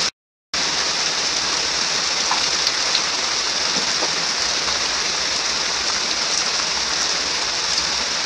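Heavy rain falling steadily on rocks and leaves, an even, dense hiss. The sound cuts out completely for about half a second right at the start, then the rain continues unchanged.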